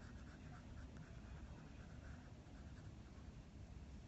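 Faint scratching of a graphite pencil on sketchbook paper, in quick short strokes several times a second, as a portrait is shaded and stippled.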